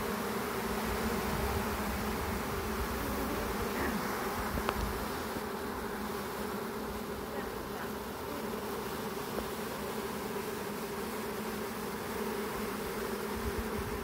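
A swarm of honey bees buzzing steadily on and around an open hive box: the dense hum of many bees in flight as a freshly hived swarm settles in.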